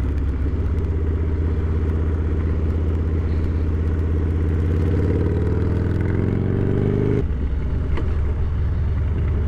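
Harley-Davidson Dyna Low Rider's Twin Cam 88 V-twin with a homemade exhaust, running under way at a steady speed. Its revs climb from about four seconds in, then drop sharply about seven seconds in, as the throttle closes or the gear changes.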